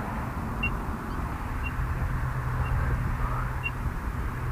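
Short, faint, high electronic beeps once a second from a race countdown timer, over a steady low rumble.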